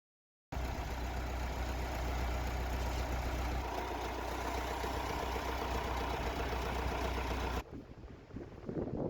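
A sawmill's engine running steadily under power while milling a large spruce log; its tone shifts about three seconds in, then it cuts off abruptly and a quieter, uneven noise follows.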